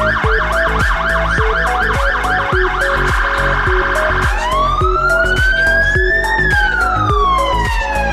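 Renault D16 fire engine's siren: about three seconds of fast yelp at roughly four sweeps a second, a second of rapid warble, then a slow wail rising for two seconds and falling. Background music with a steady beat plays underneath.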